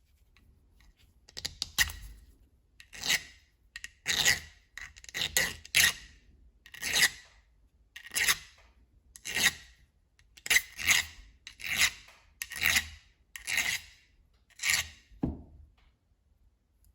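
Rasping hand strokes of an abrasive on the brass gasket cutter, about fourteen strokes at roughly one a second, with a short squeak near the end.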